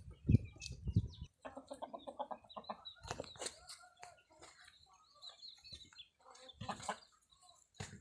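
Chicken clucking: a quick run of clucks starting about one and a half seconds in, then scattered softer clucks and clicks. Two low thumps come near the start.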